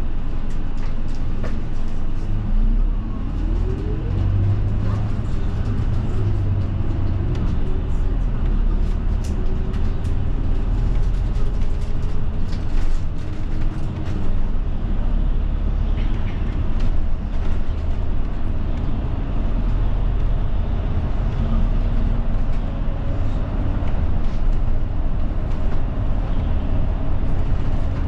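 Interior of a route bus under way: steady engine and road rumble, with the engine note rising as the bus accelerates about three to four seconds in.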